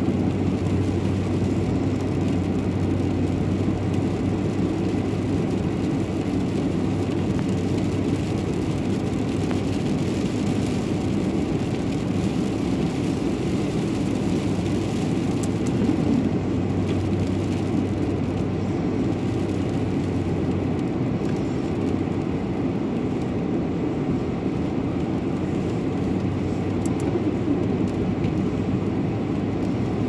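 Cabin noise of a four-wheel-drive vehicle climbing a snow-covered road: the engine running under steady tyre and road noise, with a low hum that fades about two-thirds of the way through.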